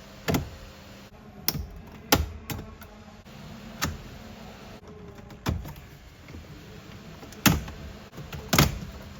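Irregular sharp clicks and knocks, about eight in nine seconds, from plastic interior trim being handled and pressed back while a cable is routed through a car.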